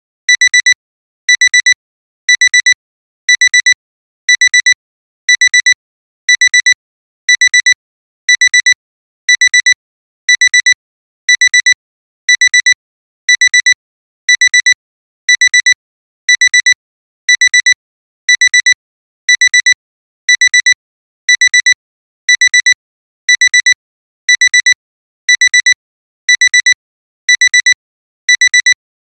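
Digital alarm clock's alarm beeping: short clusters of rapid, high-pitched beeps repeating about once a second, signalling that the timer has run out.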